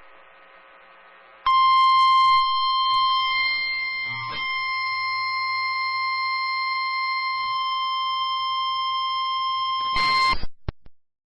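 NOAA Weather Radio warning alarm tone, the steady single-pitch 1050 Hz tone that announces an urgent warning broadcast. It comes in loud about a second and a half in, holds for about nine seconds, and cuts off in a short burst of static and a couple of clicks.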